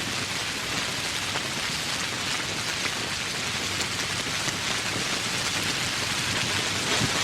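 Steady heavy rain falling on foliage and surfaces, a dense even hiss sprinkled with individual drop ticks.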